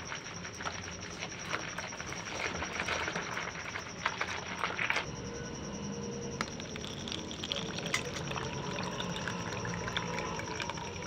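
Lassi sloshing in a steel bowl as it is churned with a hand churner (dal ghotni), with small knocks of the churner against the bowl; about five seconds in this stops, and later the thick lassi is poured in a stream into a plastic cup.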